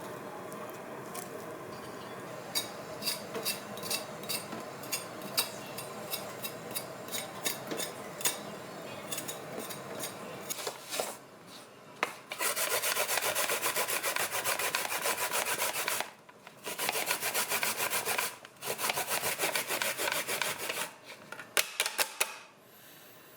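Rapid rasping on a kitchen grater, grating fresh aromatics for the sauce. Softer scraping with scattered clicks at first, then loud, fast strokes from about halfway in, in three runs with short pauses.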